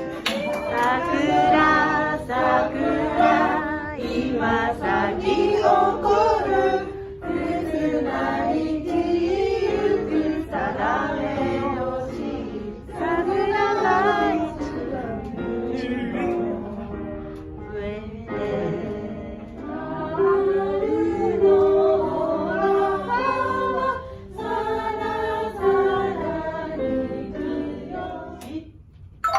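A group of people singing a song together, the voices carrying a melody phrase after phrase.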